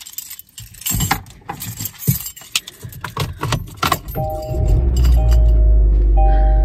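A bunch of car keys jangles and clicks during the first four seconds. About four seconds in, the car's engine starts and runs with a steady low rumble, while a two-note dashboard warning chime repeats about once a second.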